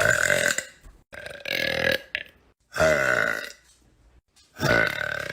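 A young woman belching: four loud burps in a row, each lasting under about a second.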